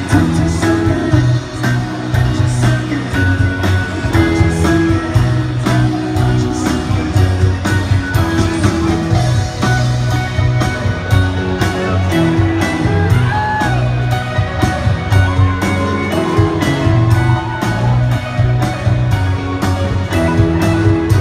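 Live rock band playing through an arena PA, heard from the audience: electric guitar, bass, keyboards and a drum kit keeping a steady beat.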